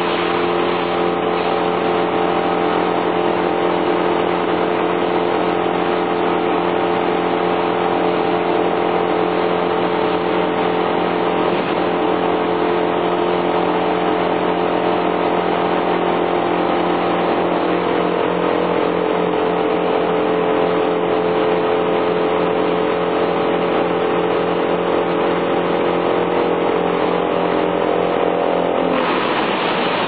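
Chainsaw running at high revs while cutting into the base of a tree trunk. It gives a steady engine tone that changes just before the end.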